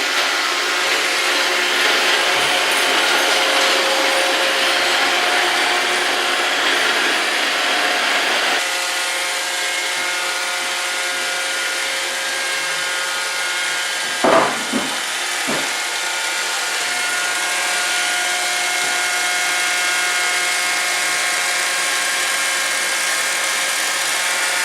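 iRobot Roomba 650 robot vacuum running: a steady whine from its motors over brush and suction noise. The hiss eases about a third of the way in, and a couple of short knocks come about halfway through.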